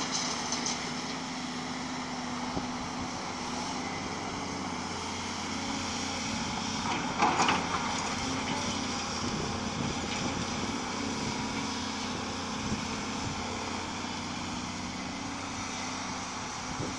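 Volvo tracked excavator's diesel engine running steadily as the machine swings and works its hydraulics. About seven seconds in there is a brief louder scraping rush as the bucket digs into the dirt pile.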